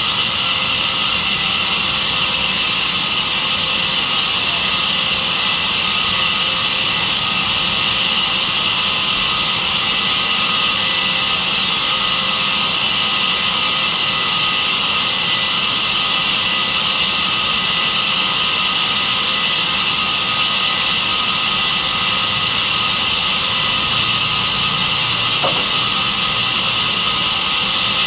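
Sawmill saw machine running steadily: a loud, even hiss with several steady high tones, unchanging throughout.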